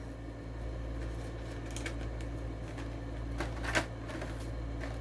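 A few faint clicks and crackles from toy diecast car blister packaging being handled and opened, the clearest about three-quarters of the way through, over a steady low hum.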